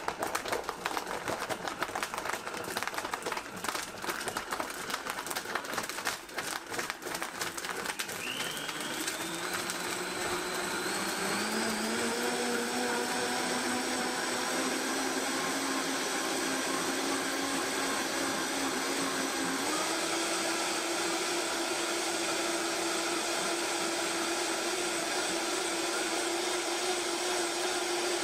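Vitamix 5200 blender crushing ice and fruit: a rattling chop at first, then the motor's whine climbs in steps as the speed dial is turned up, settling into a steady high-speed run.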